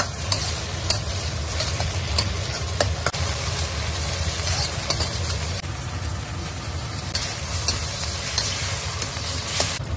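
Scrambled egg and soybean paste sizzling in a wok while a metal ladle stirs and scrapes it, with scattered clicks of the ladle against the pan. A steady low hum runs underneath.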